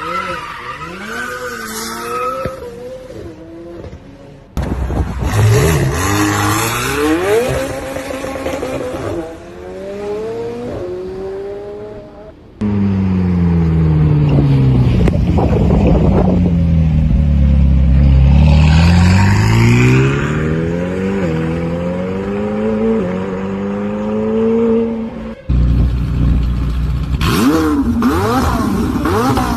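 McLaren supercar engines revving up and down hard during drifts and donuts, with tyres squealing. Several separate clips follow one another with abrupt cuts between them.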